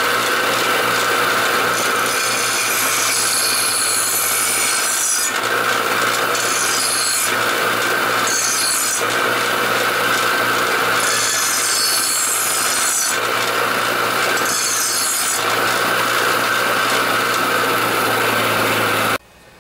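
Bench grinder running with a steady hum while the edge of a steel lawnmower blade is held against the wheel in several passes, a harsh grinding rasp coming and going, to grind the chips out of the dull edge. The sound cuts off abruptly near the end.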